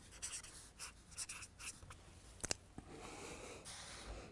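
Felt-tip marker writing on a paper flip chart sheet: a quick run of short strokes, then a single sharp tick about two and a half seconds in.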